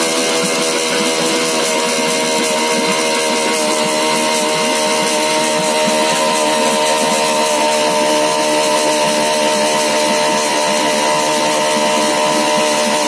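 Small outboard engine running steadily, its pitch creeping up slightly.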